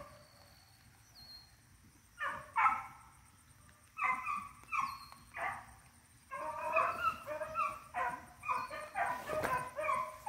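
Rabbit beagles baying while running a track: a few separate bays early, then from about six seconds in several dogs giving mouth almost without a break.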